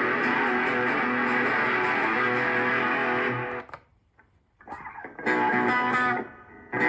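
Electric guitar played through a Zoom G1X Four multi-effects pedal's preset patches. A thick, sustained effected chord rings and cuts off a little past halfway. After a brief silence, strummed chords come in with a different, cleaner-edged tone, with a short dip before a last chord near the end.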